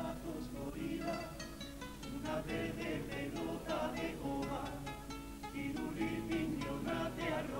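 Spanish guitars of a carnival comparsa playing an instrumental passage: a steady run of plucked notes with no singing.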